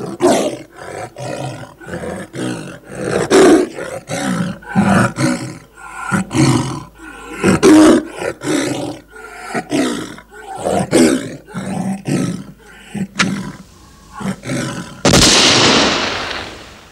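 Tiger snarling and roaring in a rapid, continuous series of growls. About fifteen seconds in, a single loud gunshot cracks and rings out, fading over a second or so.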